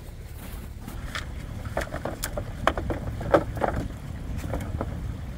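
Plastic recovery boards being shoved under a tyre into a bed of branches and snow: a run of short clatters, scrapes and twig snaps, loudest in the middle, over a steady low rumble.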